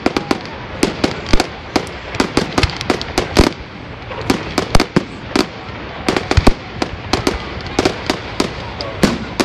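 Fireworks display going off: rapid, irregular cracks and bangs of exploding shells, several a second, with a steady crackle in between.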